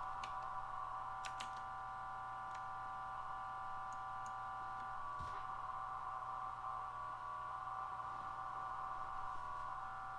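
Minimodem audio frequency-shift-keying data signal at 400 baud, sent by a Raspberry Pi 4 and looped through an A/V system: a continuous buzzy stream of modem tones whose pattern shifts slightly as the data changes.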